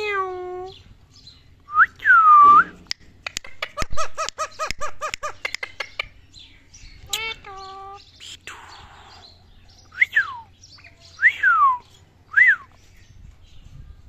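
Indian ringneck parakeet calling and whistling. A short call opens, followed about 2 s in by a loud whistle that swoops down and back up. Next comes a fast rattling trill of about seven pulses a second lasting some three seconds, then another short call, and near the end three loud whistles that each fall in pitch.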